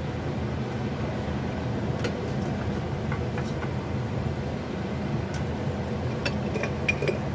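Water at a rolling boil in a steel pot on a gas burner: a steady bubbling rumble with a few small pops scattered through it.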